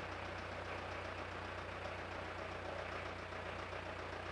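Quiet, steady low hum of background noise, with no distinct event.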